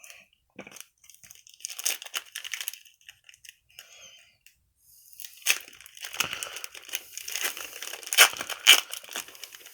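Foil trading-card pack wrapper crinkling and being torn open, in two spells of crackling; the second is longer, with a few sharp cracks near the end.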